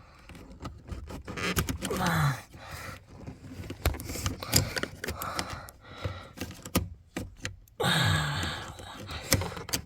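Handling noises of plastic interior trim being worked by hand: scattered clicks, knocks and scraping, with a few short strained grunts and breaths.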